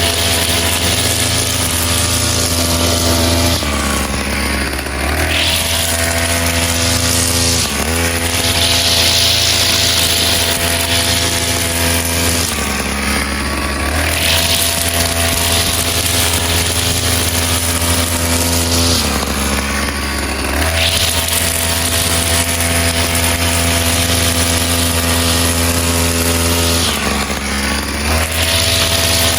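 Two-stroke brush cutter engine with a 45 mm bore running at high speed. About five times its pitch drops briefly and then climbs back.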